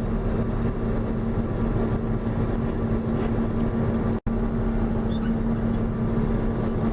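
John Deere 6620 combine running steadily while harvesting corn, heard from inside the cab: a constant engine and machinery drone with a steady hum. The sound cuts out for an instant a little past four seconds in.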